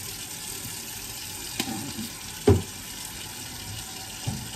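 Hot water running steadily from a kitchen tap into a sink as it fills for washing up. A sharp knock sounds about halfway through, and a lighter one near the end.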